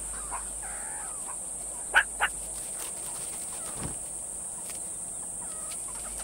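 Meerkat sentry giving its alarm call for an eagle overhead: two short, sharp, loud calls in quick succession about two seconds in, after a few fainter calls.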